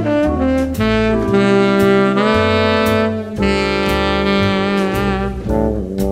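Background jazz music: a lead horn holds long notes over a moving bass line and drums.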